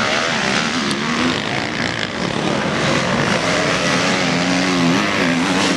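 A pack of motocross bikes racing round a dirt track, their engines blending into a dense, continuous noise, with one or two bikes audibly revving up and down in the last couple of seconds.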